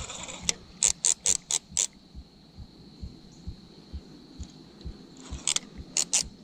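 Fishing reel drag clicking in short runs of sharp clicks, about five in quick succession a second in and another run near the end, as a hooked carp pulls line off against it.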